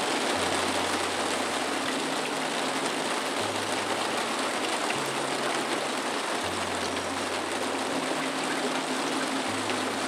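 Steady water noise, like a stream or rain, with soft background music of slow, sustained low notes changing every second or two.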